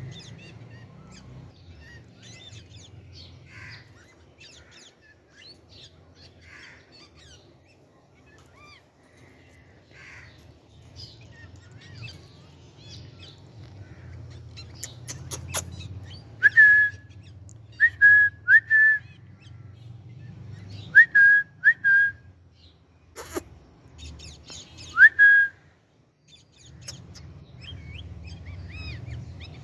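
Birds chirping, and from about halfway through, six loud, short whistled notes all on the same pitch, each starting with a quick upward flick. A couple of sharp clicks fall among them.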